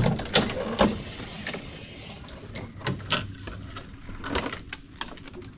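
A few scattered knocks and clicks from gear handled in a small boat, the loudest in the first second and a couple more about three and four and a half seconds in.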